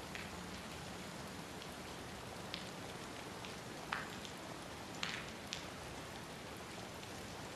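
Steady rain falling, with a few louder drops ticking sharply close by, the strongest about four and five seconds in.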